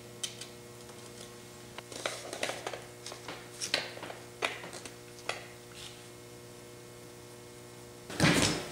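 Small metal parts clicking and scraping as hands fit a brass wheel weight and lockout onto the rear hub of a 1/8-scale RC crawler, over a faint steady electrical hum. A louder bump near the end.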